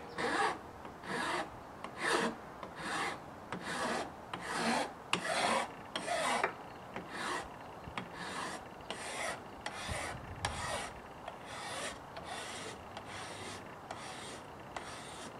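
Flat hand file rasping along the edge of Formica laminate in short, regular strokes, about one and a half a second, growing fainter in the second half: the laminate edge being smoothed by hand after flush-trim routing.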